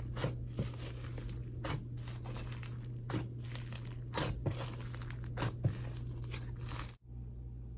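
Clay jelly slime being stretched and squished by hand, giving irregular sticky pops and crackles about one or two a second. The sound cuts off about seven seconds in.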